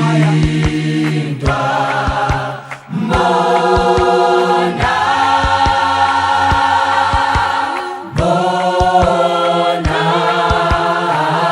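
A vocal choir singing a song in close harmony, holding chords in phrases broken by short breaths, over a steady beat of short low taps.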